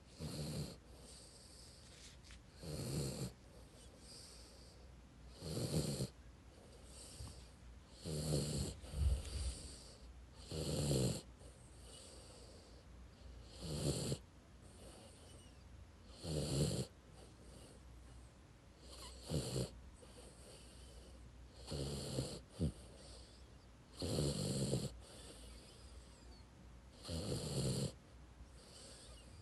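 A sleeping dog snoring in a steady rhythm, one raspy snore about every two and a half to three seconds.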